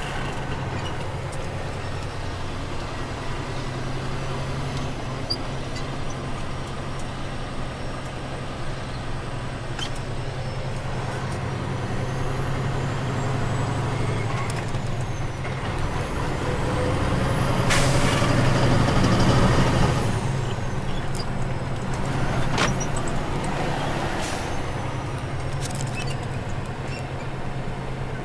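Steady low engine drone and road noise from inside a moving truck cab. About 18 s in comes a loud hiss lasting about two seconds.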